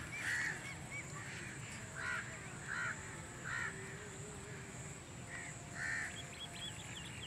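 Crow cawing, about six caws spaced irregularly a second or so apart, over a steady high-pitched whine, with a few faint quick chirps near the end.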